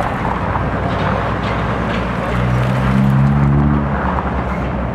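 Outdoor road noise with a motor vehicle engine: a steady rumble, and an engine hum that swells between about two and four seconds in as a vehicle goes by or works nearby.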